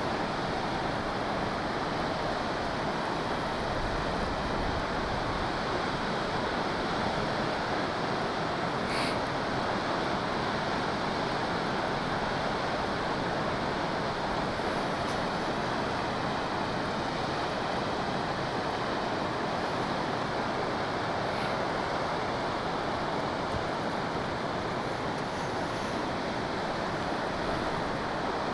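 The Akiu Great Falls, a large waterfall, pouring with a steady, even rush of falling water.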